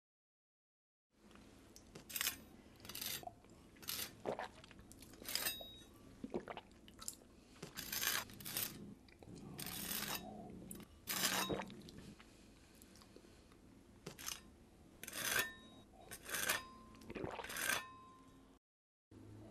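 Close-up crunching and chewing, as of someone eating something crisp: sharp crunches at irregular intervals, a few a second, starting about a second in.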